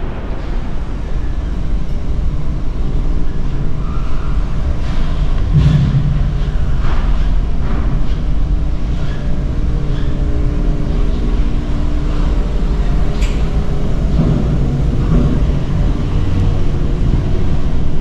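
Steady low rumble and hum of machinery on a ferry's enclosed car deck, heard from inside a slowly moving car, with a few light clicks.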